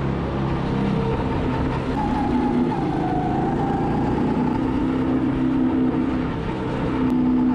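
Go-kart's small engine running at speed, heard from the driver's seat. Its note sags and wavers about two to three seconds in, then holds steady, dips briefly about six seconds in and picks up again.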